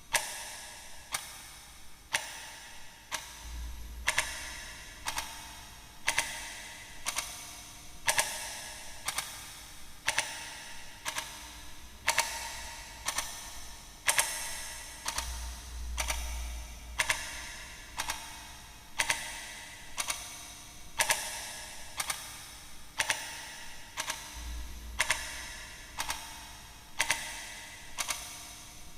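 Clock tick-tock sound effect, sharp ticks about once a second that turn into doubled ticks a few seconds in. A low rumble swells briefly three times.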